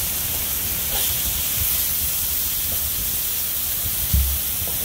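Marinated chicken fajita strips frying on an electric griddle: a steady sizzle, while a wooden spatula spreads the meat. A short low thump about four seconds in.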